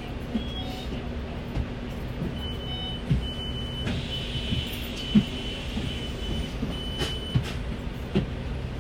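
A KMB bus's engine running steadily, heard inside the passenger cabin as a low drone with scattered knocks and rattles. A thin, high electronic tone sounds in short broken pulses from about two seconds in until near seven seconds.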